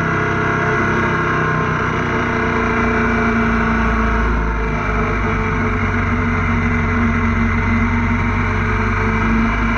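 Motorcycle engine running steadily at road speed, with wind rushing past the microphone. The low rumble grows heavier about halfway through.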